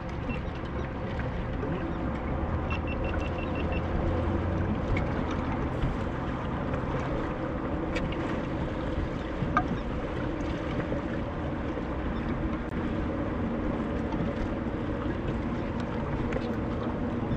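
Wind and choppy water slapping against a small motorboat, with a steady low hum underneath. A quick run of small ticks about three seconds in.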